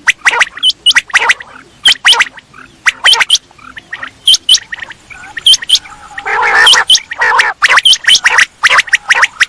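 Common quail calling over and over: short, sharp, high notes in quick runs, with a denser, rasping burst of overlapping calls about six seconds in.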